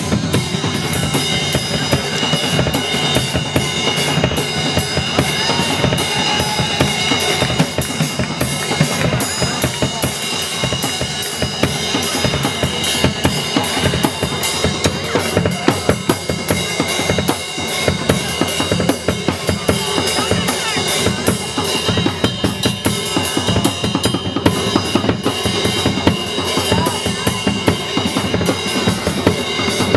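Loud band music driven by fast, steady drum-kit playing (bass drum, snare and cymbals), with steady high ringing tones held above the beat.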